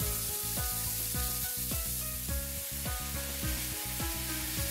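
Thin-sliced beef sizzling in hot oil in a frying pan as it is stir-fried with chopsticks, over background music with a steady run of notes.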